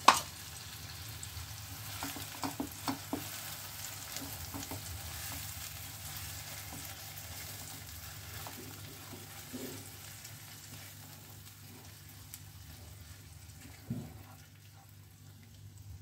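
Spinach paste frying in a nonstick pan of onion-tomato masala, sizzling while a silicone spatula stirs and scrapes it. A sharp knock comes just after the start, a few short knocks follow about two to three seconds in, and another knock near the end. The sizzle grows quieter toward the end.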